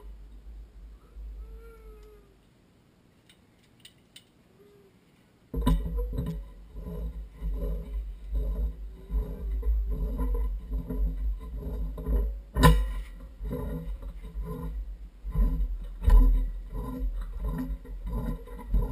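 Slip-joint pliers working metal pipe fittings at a well tank: a loud rumble of handling noise starts suddenly about five seconds in, with repeated scraping and knocking and one sharp click partway through.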